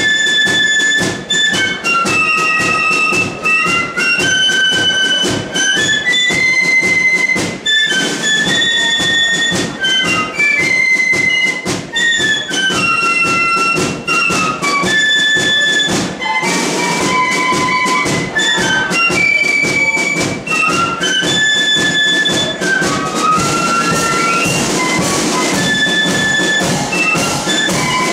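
A melody flute band plays a tune, with many flutes carrying the melody over a steady march beat from bass drum and snare drums. Bursts of cymbal hiss join in, around two-thirds of the way through and again near the end.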